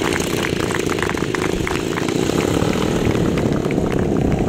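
Engine of a giant-scale radio-controlled model warplane running at taxiing power, a steady propeller drone with a fast crackle that grows a little louder in the second half.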